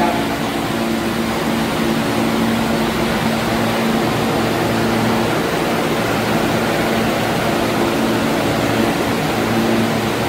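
New York City Subway A train standing in the station with its doors open: the steady hum and hiss of its air-conditioning and onboard equipment, with a couple of low held tones.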